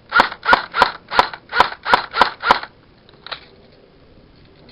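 Airsoft rifle fired eight times in quick succession, about three shots a second, followed by one fainter click. This is test-firing to check a feeding problem that the owner puts down to the magazine.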